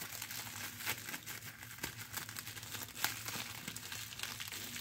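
Plastic bubble wrap crinkling and rustling in the hands as it is pulled at and turned, with irregular small crackles throughout.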